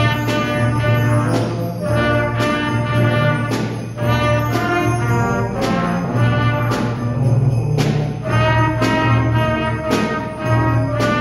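A small school wind band of brass and woodwinds playing a Christmas tune in held notes over a steady bass line, the notes changing about once a second.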